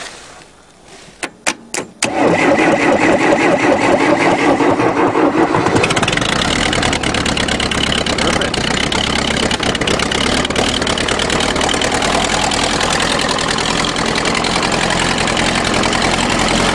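Cold start of a 1974 Case tractor's 2-litre diesel engine at −9 °C, helped by a shot of ether because it has no glow plugs. A few sharp clicks as the starter is jumped, then the starter cranks about two seconds in and the engine catches, running steadily from about six seconds in.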